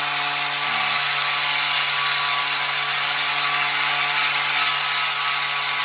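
Angle grinder with a flap disc running steadily against the weld on a stainless steel pipe leg, grinding the weld clean with a constant motor whine and abrasive hiss.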